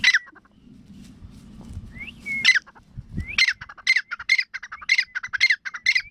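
Grey francolin (teetar) calling: a rising whistled note at the start and another about two seconds in, then a fast run of shrill, repeated notes, about two a second, from about three seconds in.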